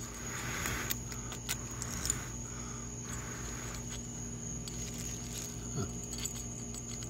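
Scattered light metallic clicks and scrapes as steel tongs handle bits of cast metal in a mold, over a steady background hum.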